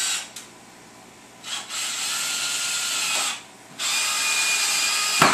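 Cordless drill driving screws into a hardwood panel, its motor whining in stop-start runs of a second or so each, with a short blip between them and a sharp click near the end.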